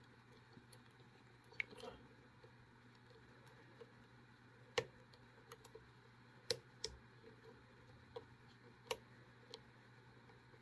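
Faint, scattered clicks and ticks of a hook pick and tension wrench working the pins of a small Häfele 5-pin pin-tumbler cam lock, a handful of sharp clicks a second or two apart.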